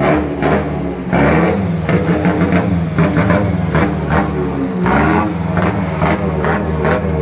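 Mitsubishi Canter truck's diesel engine revved through a remote-controlled exhaust valve, the pitch rising and falling several times.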